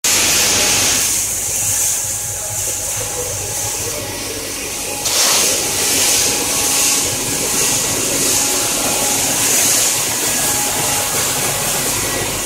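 Blueberry colour-sorting line running: a steady mechanical din of conveyors and sorting machinery with a strong hiss over it, getting louder about five seconds in.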